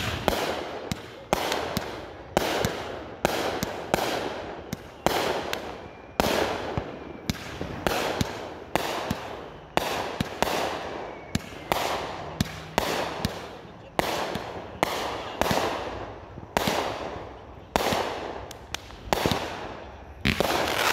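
Consumer aerial firework cake firing shot after shot, a sharp bang about once a second, each one fading away before the next.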